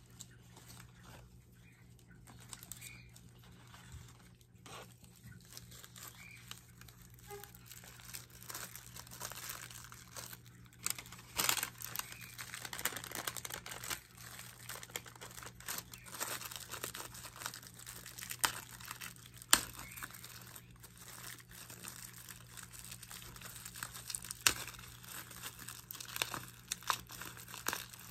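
Paper plant wrapping crinkling and rustling as it is handled and pulled off plants by hand, with irregular sharp crackles that grow busier and louder after about ten seconds.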